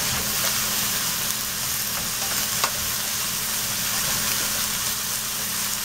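Cauliflower florets sizzling steadily in a little oil in a nonstick pan as they are stirred with a spatula, with a light click of the spatula about two and a half seconds in.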